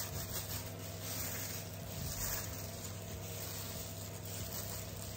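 Plastic disposable glove rubbing and rustling through dye-coated hair twists, in a few uneven swells, over a steady low hum.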